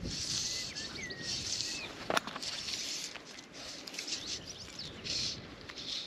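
Fly line being stripped in by hand in short pulls, each pull a brief hiss of line through the fingers and rod guides. A small bird chirps briefly about a second in, and there is one sharp click just after two seconds.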